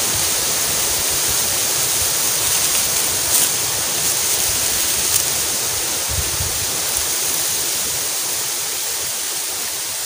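A steady, even hiss like wind or running water, with a few brief faint crackles of dry bamboo leaves being gathered and bundled by hand.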